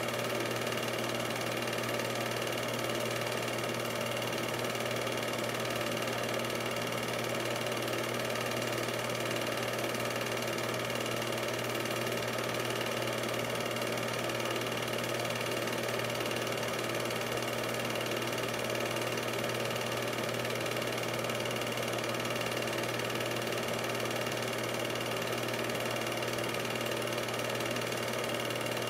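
8mm film projector running: a steady mechanical whir with a fast, even clatter and hum that does not change.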